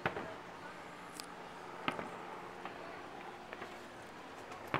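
Distant aerial fireworks bursting: three sharp bangs, one right at the start, one about two seconds in and one near the end, with a few fainter pops between them.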